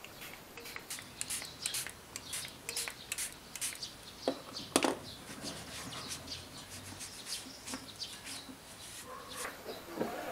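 A cloth rubbing over a record player's platter and case and a speaker grille in quick, irregular wiping strokes, with a couple of sharper knocks about halfway through.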